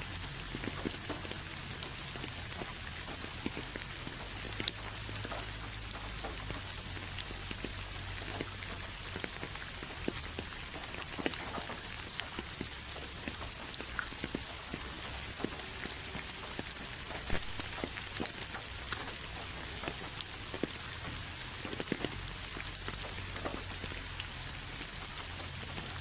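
Steady rain falling, with many individual drops pattering and ticking on a hard surface.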